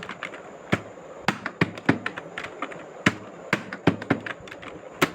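Keyboard keystrokes: a run of about ten sharp, separate key clicks at an uneven pace, roughly two a second.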